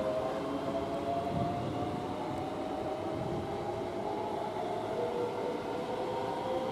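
Great Northern electric multiple unit pulling out of the station, its traction motors giving a whine that rises slowly in pitch as it gathers speed, over the rumble of wheels on the track.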